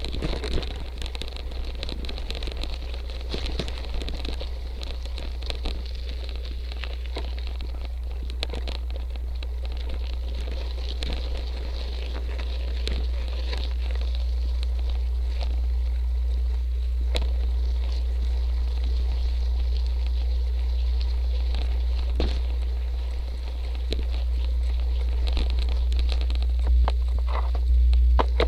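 Cyclocross bike tyres rolling over icy, stony gravel and dirt, with a crackle of small stones and scattered rattles and knocks from the bike. Under it runs a steady low rumble from wind and vibration at the bike-mounted camera.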